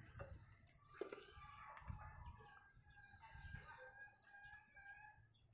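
A rooster crowing faintly in the distance, one long drawn-out crow. A light click comes at the start and another about a second in.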